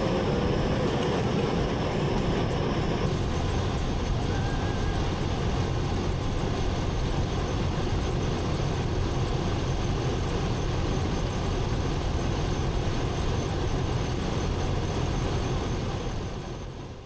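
Steady vehicle noise with a low rumble underneath, fading out near the end.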